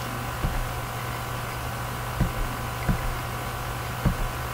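A steady low hum with faint hiss, the background noise of the recording, broken by four soft low thumps.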